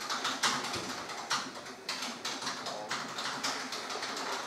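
Scattered light taps and clicks at an irregular pace, a few each second.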